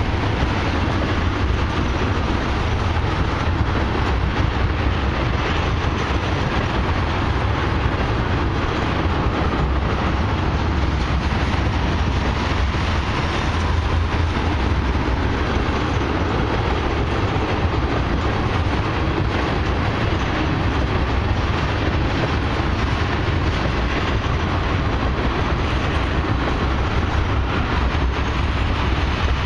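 Loaded tank cars of a long freight train rolling steadily past: a continuous, even rumble of steel wheels on rail.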